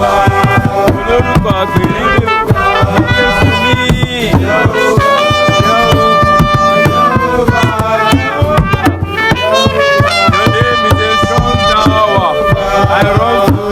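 Worship song instrumental passage: a full band with busy drums and percussion under a gliding melodic lead line, loud and steady, with no words sung.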